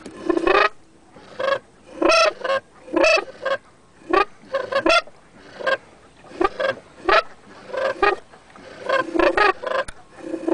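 Waterfowl calling: loud honking and quacking calls in short runs of several notes, repeated with brief pauses.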